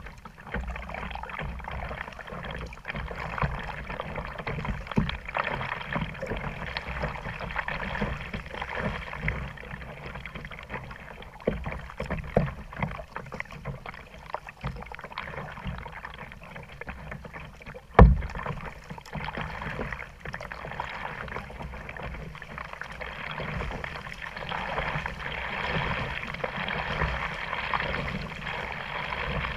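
Kayak being paddled: paddle splashes and water sloshing against the plastic hull, with frequent small knocks and one loud knock about two-thirds of the way through.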